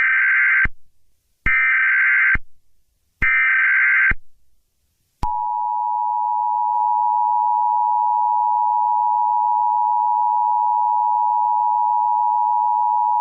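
Emergency Alert System header: three short bursts of SAME data tones, each just under a second. About five seconds in, the steady two-tone EAS attention signal starts and holds.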